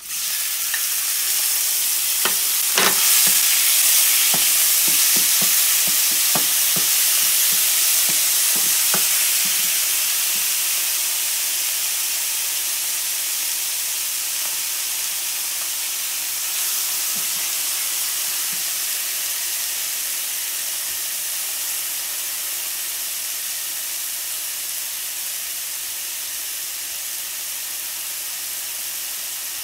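Roasted red peppers hitting a hot sauté pan of shallots and sizzling loudly, stirred with a wooden spoon that knocks and scrapes against the pan over the first several seconds. The frying hiss then eases off gradually as the peppers settle in.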